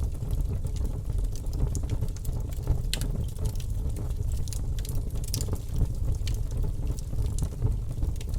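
Wood fire burning, with a steady low rumble and frequent sharp crackles and pops from the burning wood, one louder pop about three seconds in.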